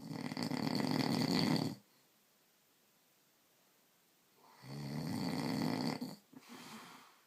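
A man snoring loudly in sleep: one long snore, a quiet pause of a couple of seconds, then a second snore that trails off into a shorter, softer breath.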